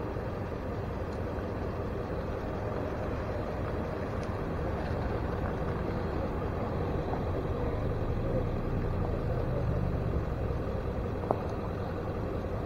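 A motor vehicle engine idling, a steady low rumble that grows a little louder around the middle.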